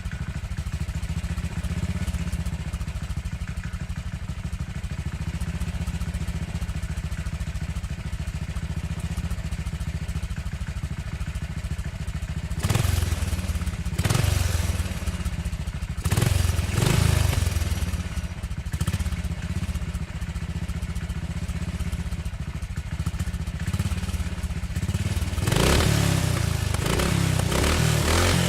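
Motorcycle engine idling steadily, then revved in a few short throttle blips, each rising and falling, and a longer run of revving near the end.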